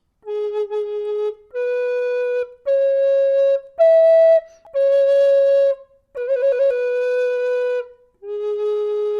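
Solo melody on a wind instrument: a slow phrase of seven held notes that climbs to a high note about four seconds in, then falls back to the low note it began on, with a quick turn at the start of the sixth note.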